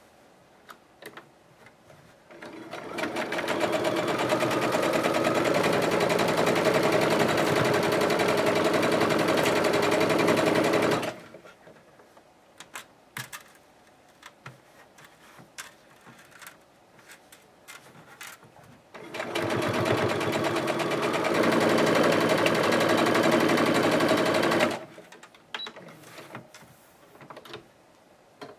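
Domestic electric sewing machine stitching a seam through patchwork quilt pieces in two runs of several seconds each, the first picking up speed as it starts, both stopping abruptly. Small clicks and taps of fabric handling between the runs.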